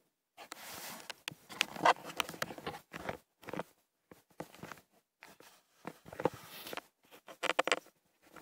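Close contact noise on the camera: irregular rustling, scuffing and sharp knocks as something rubs against it and shifts it, starting about half a second in.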